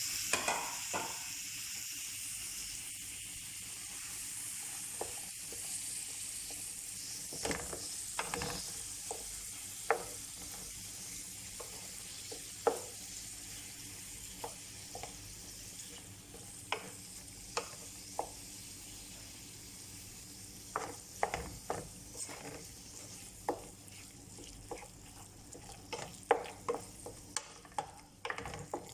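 Ground meat sizzling in a frying pan while a spatula stirs it, with irregular knocks and scrapes of the spatula against the pan. The sizzle is strongest at first and slowly dies down as the meat cools the pan.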